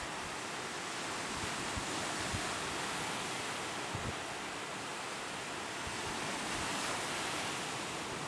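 Lake waves, 2 to 4 feet high, breaking in the shallows and washing up the sand shore: a steady rush of surf. A few brief low thumps come about two and four seconds in.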